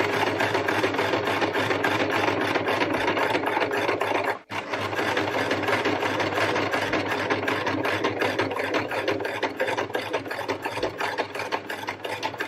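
Electric household sewing machine running fast, stitching a seam through fabric with a rapid, even clatter of the needle. It breaks off for an instant about four and a half seconds in, then runs on.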